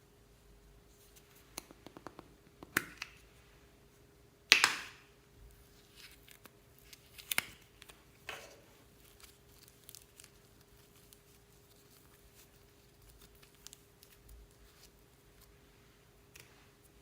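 Slime being mixed and handled by hand: scattered sticky clicks and short crackles, the loudest about four and a half seconds in and another near seven and a half.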